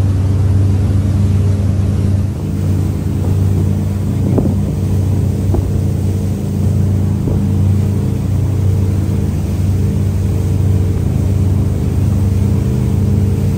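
Powerboat engine running at a steady high speed, a constant drone, with wind rushing over the microphone and the hiss of the wake.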